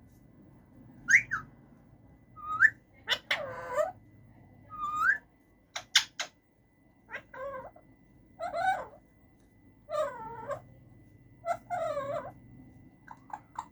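A male Alexandrine parakeet makes a string of varied sounds: short rising whistles, a few sharp clicks, and about five short warbling calls with wavering pitch, each under a second long and separated by brief pauses.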